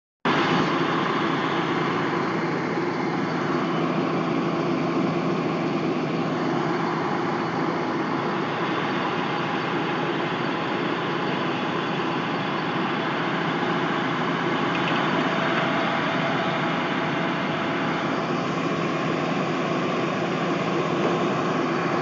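Combine harvester running steadily while its unloading auger pours threshed wheat from the grain tank into a trailer: a dense, even machine drone of engine and working mechanisms.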